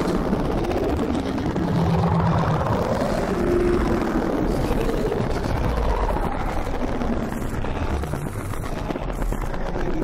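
Experimental electronic soundtrack: a dense, rumbling noise drone with faint tones slowly rising and falling through it, easing off slightly near the end.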